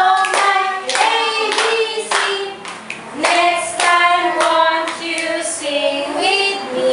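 A woman singing a children's action song in a classroom, with hand claps keeping time along with it.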